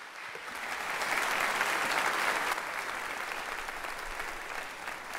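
Congregation applauding in a large hall, swelling over the first second and then holding steady.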